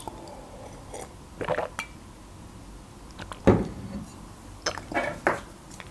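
A gulp of juice from a tall drinking glass, then the glass set down on a wooden board with a single knock about three and a half seconds in, followed by a few light clinks of a fork.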